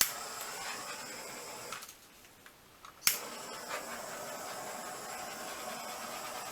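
Handheld torch clicked alight and hissing steadily for under two seconds, then cut off. About three seconds in it clicks on again and hisses steadily on. It is being passed over wet acrylic paint to pop air bubbles.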